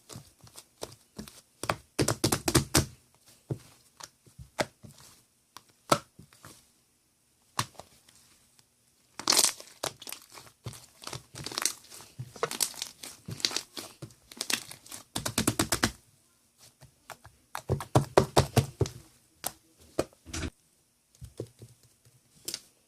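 Bursts of crinkling, crackling handling noise, many sharp clicks packed close together, coming in clusters of a second or more with short pauses between them.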